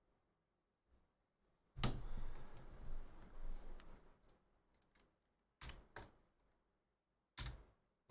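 A pair of dice thrown onto a tabletop playmat about two seconds in, tumbling and knocking for about two seconds before settling. A few single sharp clicks follow near the end.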